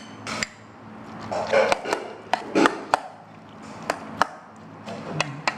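Irregular sharp knocks of a kitchen utensil against a bowl or board as cooked fish flesh is mixed, about ten in all.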